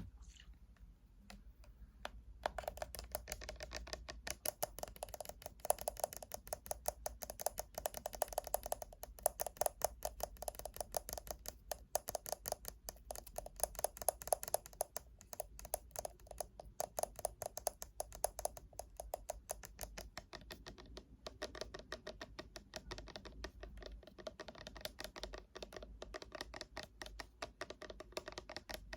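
Fingernails tapping rapidly on hard objects: a dense stream of light, sharp clicks, many a second, starting about two seconds in.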